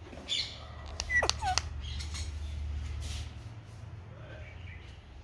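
Indian ringneck parrot making a few short squawks, with a quick falling whistle-like call about a second in, over a steady low hum.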